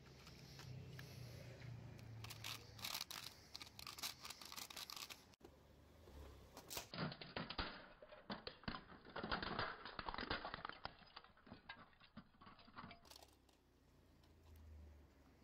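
Broken plastic toy saw clicking and rattling as it is handled, then a car tyre rolling slowly over a small clear container with red plastic parts, crushing it with a long run of cracks and snaps that is the loudest part.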